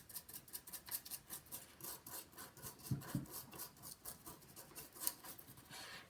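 Toothbrush scrubbing the alcohol-wetted inside of an iPhone 5 housing near the power button: quick, faint scratchy strokes, about five a second.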